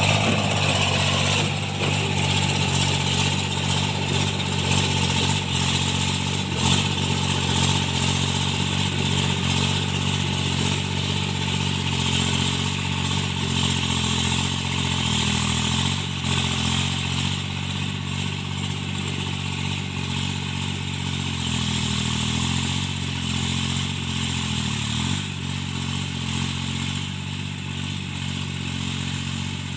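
Tractor engine running steadily while cultivating, its knocking repaired; the engine note dips briefly a few times, past the halfway mark.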